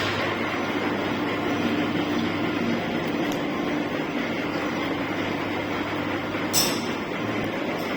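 DIP-300 universal screw-cutting lathe running steadily, a continuous mechanical hum, with one short sharp click about six and a half seconds in.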